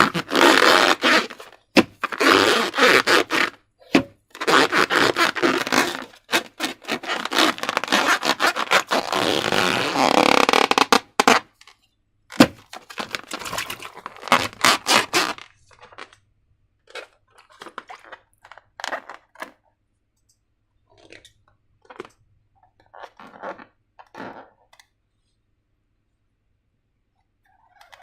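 Slime being squished, stretched and pressed by hand, a dense run of wet crackling and squelching for about the first fifteen seconds, then only fainter, scattered squishes that die away.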